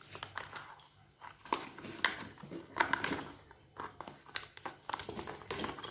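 Hands handling the empty cardboard insert of a phone box: irregular light scraping, rustling and tapping of the card.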